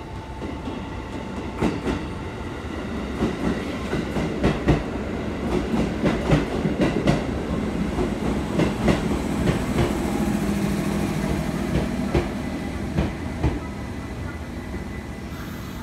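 Electric commuter train running in along the platform: its wheels clack over the rail joints with a continuous rumble, and a steady hum comes up under it in the second half.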